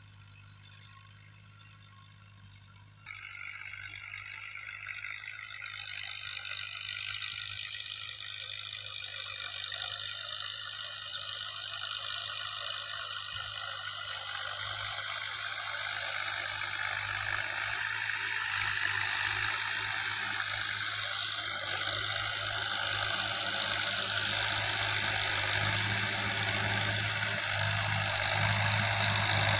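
Tractor's diesel engine running under load while working a field, with the clatter of the implement; the sound jumps up about three seconds in and then grows steadily louder as the tractor comes closer.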